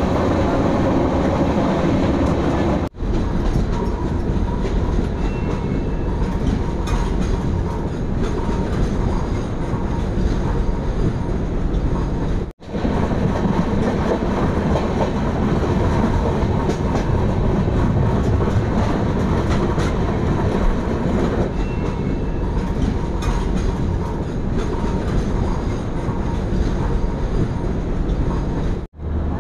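Indian express passenger train running on the line: a steady rumble of the coaches with the wheels clicking over the rails. The sound cuts out for an instant three times, about three seconds in, about twelve seconds in and near the end.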